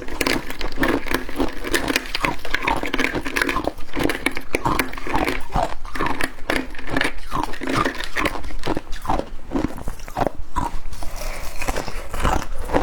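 A person biting and chewing ice from a deep freezer: a dense, irregular run of crunches and crackles, several a second.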